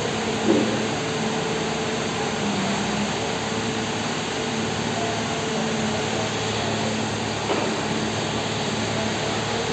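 Diesel engine of a Manitou rotating telehandler running steadily with a constant hum while the machine works its hydraulics to swing out its stabilizer legs. A sharp knock comes about half a second in and a smaller one about seven and a half seconds in.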